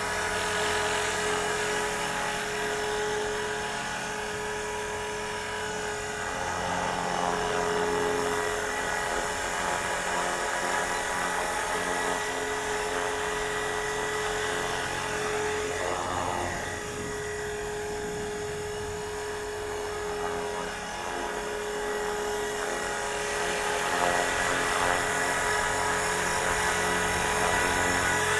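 ALZRC X360 electric RC helicopter hovering: a steady, high-pitched whine from the motor and gear train with the rotor's hum, swelling and easing slightly as the throttle and pitch are worked. The freshly replaced main rotor gear runs without the earlier chipped-gear noise.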